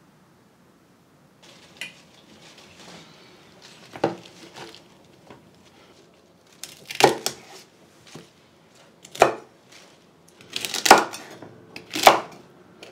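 Chef's knife cutting celery stalks on a wooden chopping board: about five sharp knocks of the blade striking the board, one to two seconds apart, with rustling of the stalks and leaves between.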